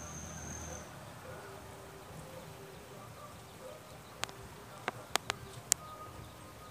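An insect buzzing faintly on and off. A steady high whine stops about a second in, and five sharp clicks come between about four and six seconds in.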